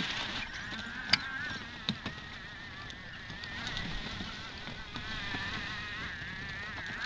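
Homemade ride-on model tank whining as it drives and turns on snow, its motor's buzzing pitch wavering up and down, with a sharp click about a second in and a smaller one near two seconds.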